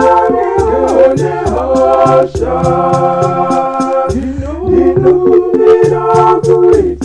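One woman's voice layered into several harmony parts, singing a hymn together like a small choir, over a steady ticking beat.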